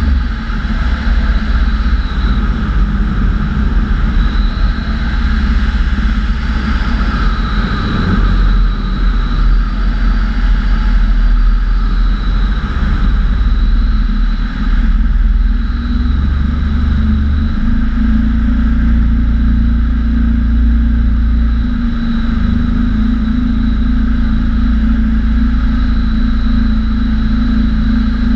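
Microlight trike's engine and pusher propeller running steadily at cruise power, a constant drone with a thin high whine on top, over heavy wind rumble on the wing-mounted microphone.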